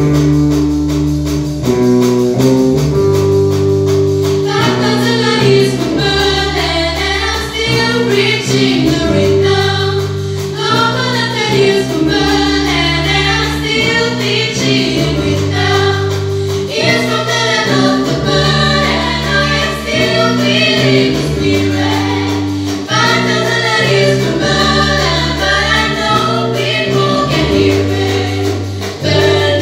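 Live band of drums, electric bass, electric guitar and piano with a group of female singers singing together. The instruments play alone for about the first four seconds, then the voices come in over the band.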